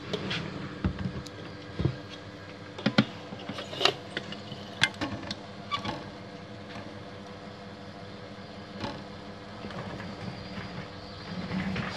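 Plastic clicks and knocks as a black copier unit with blue handles is handled and stood upright against glass. The knocks come as a cluster of sharp ones in the first half, then only a few. A steady hum runs under them.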